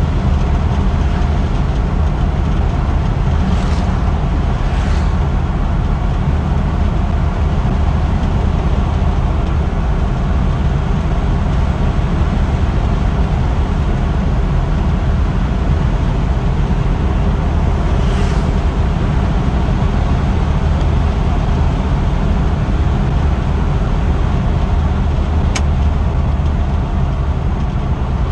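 Steady running drone of a 1958 Chevrolet Biscayne's 283 V8 and its tyres on the road at cruising speed, heard inside the cabin, deep and even throughout. A few brief whooshes and a light click near the end.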